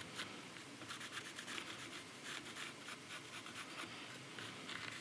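Quiet, irregular scratching and rubbing strokes on a green sycamore cup blank.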